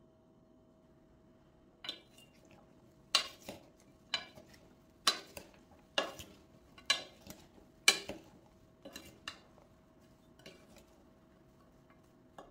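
Two plastic serving spoons tossing diced raw vegetables in a ceramic-coated frying pan. They knock against the pan about once a second, with softer clicks between, and start about two seconds in.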